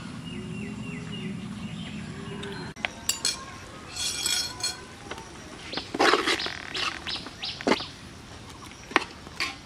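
Metal ladle clinking and scraping against the side of a large aluminium cooking pot while rice is stirred in it, in irregular strokes starting about three seconds in, loudest around six and nine seconds. Before that, birds chirp.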